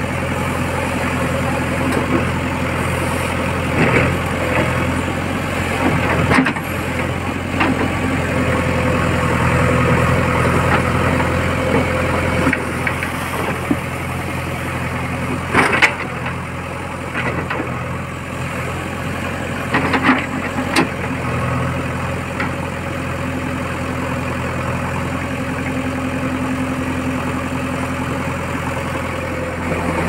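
JCB backhoe loader's diesel engine running steadily under the digging work, with several sharp knocks and scrapes as the bucket bites into earth and stones.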